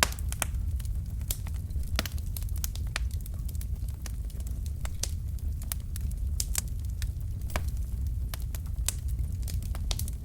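Wood logs burning in a fireplace, crackling with frequent sharp, irregular pops over the steady low rumble of the flames.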